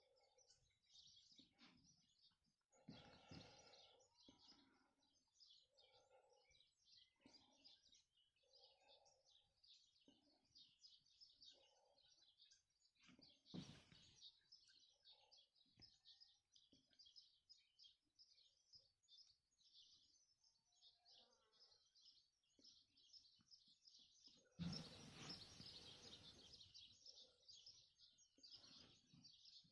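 Faint, busy chirping of small birds, with a few lower calls in among it. A soft knock comes midway, and near the end a rush of noise, like wind on the microphone, is the loudest thing for a few seconds.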